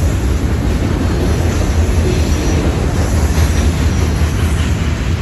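Freight train cars rolling past close by: a steady rumble of steel wheels on the rails, with a faint high wheel squeal now and then.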